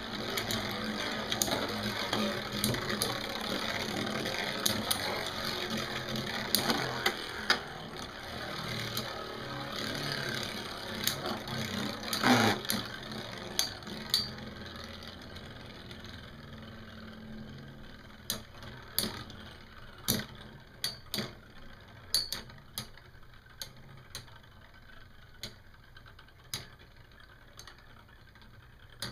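Two metal Beyblade spinning tops whirring on the plastic floor of a Beyblade stadium, broken by sharp clacks of impacts as they hit. The whirr grows fainter as the tops lose spin, and the clacks stand out more in the second half.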